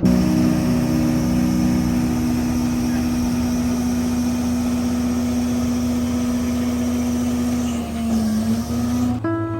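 An engine running at a steady speed, with a strong steady hum and a hiss over it. Its speed dips briefly and recovers near the end, and the sound cuts off abruptly.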